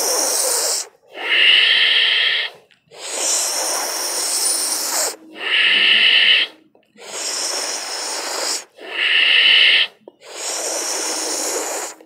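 Sheetali pranayama breathing: a long, airy inhalation drawn through the tongue curled into a tube, followed by a shorter, slightly louder exhalation through the nose with the mouth closed. The cycle repeats at an even pace, about four breaths in and three out.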